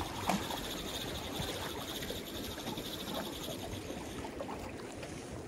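A spinning reel being cranked to wind in line, ticking lightly, over water sloshing against breakwater rocks.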